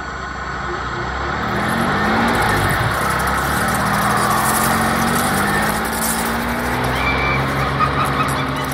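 Cartoon sound effect of a car engine running steadily, growing louder over the first two seconds, with a short high squeal near the end.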